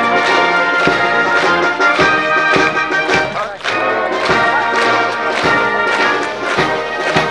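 Brass band playing a march, many brass instruments over a steady drum beat.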